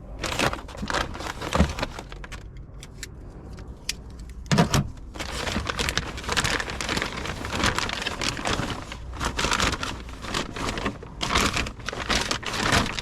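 Plastic packaging rustling and crinkling, with small fixings rattling and clicking as kit parts are handled; the handling is sparse at first and busier from about five seconds in.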